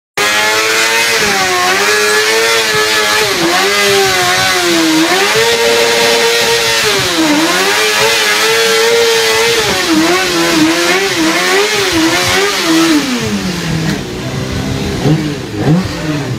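Honda CBR600F4i sportbike's inline-four engine held at high revs in a burnout, its pitch swinging up and down with the throttle over the hiss of the spinning rear tyre. Near the end the revs drop and the engine is blipped a few times.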